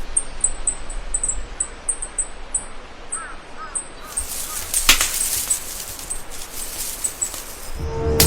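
Outdoor wildlife ambience: a high, short chirp repeated about three times a second over a steady hiss, with a few faint short calls midway and one sharp click about five seconds in.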